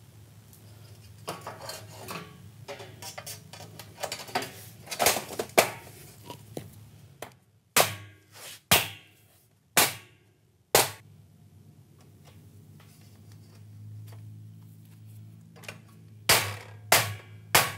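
A mallet knocking aluminium track inserts down into a sliding glass door's sill track so they snap into place. Single sharp knocks come about a second apart, four around the middle and another run near the end, with lighter clicks and taps of the aluminium parts in the first few seconds.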